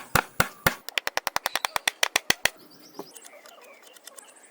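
A run of sharp knocks, about four a second, speeding up to about seven a second and stopping about two and a half seconds in; faint scraping follows.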